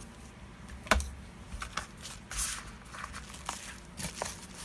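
A parcel's packaging being handled and opened: intermittent crinkling and tearing rustles, with a sharp click about a second in.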